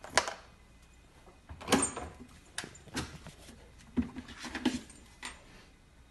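Husky puppy clambering into an open refrigerator: a string of sharp knocks and clatters against the plastic shelves and door bins, about seven over six seconds, the first as the fridge door swings open.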